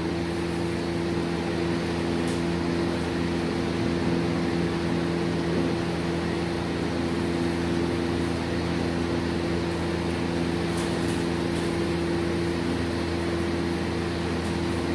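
Wall-mounted exhaust fan running with a steady, even hum made of a few constant low tones, with a few faint crinkles of a plastic bag.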